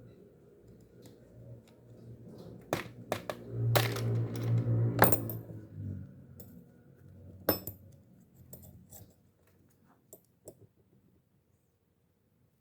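Small metal fishing-reel parts clicking and clinking as they are handled and set down on a hard surface during disassembly, with a few sharp knocks. A low hum runs under the loudest knocks around the middle.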